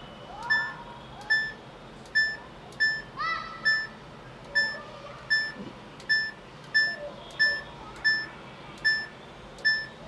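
Samsung Ecobubble washing machine's control panel giving a short electronic beep at each click of the program selector dial as it is turned through the wash cycles, a steady string of beeps a little under two a second. There is one longer rising tone a little after three seconds in.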